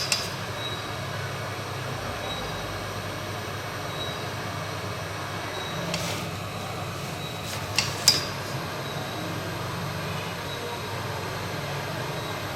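Hot air rework gun blowing steadily to reheat the board while solder is cleared from the pads, with a few light clicks of metal tools, about six and eight seconds in.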